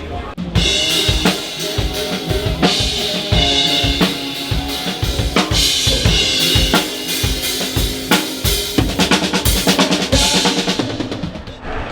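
Live drum kit played hard, kick, snare and rimshots in quick succession, with a band's pitched instruments underneath and no vocals.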